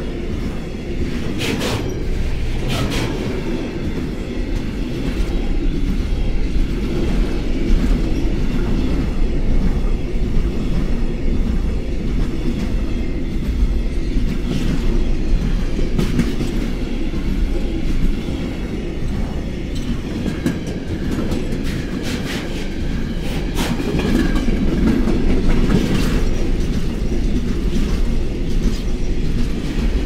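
Container freight train passing close by: a steady loud rumble of wagons on the rails, with sharp wheel clicks a couple of times near the start and a cluster of them about two-thirds of the way through.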